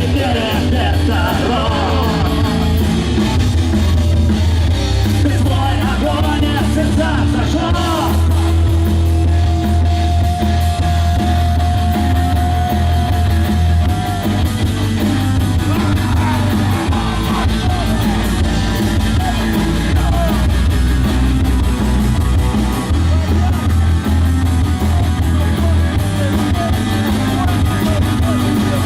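Live rock band playing an instrumental break: a lead line with wavering bends and one long held note a third of the way through, over drums and bass.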